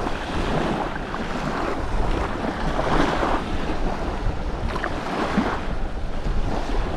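Wind buffeting the microphone, with a continuous rumble and surges of noise, over the wash of the sea.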